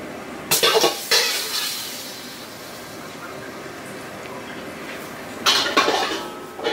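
A metal serving spoon clinking and clattering against dishware, in two short bursts about five seconds apart, each a quick cluster of knocks with brief ringing.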